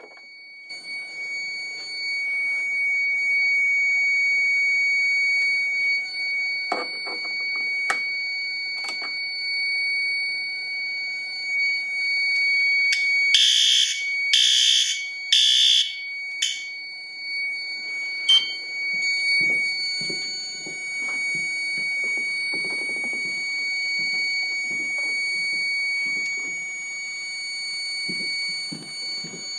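Fire alarm system sounding under test: a steady high-pitched tone, broken about halfway through by four or five short, louder buzzy horn blasts. A few knocks are heard along the way.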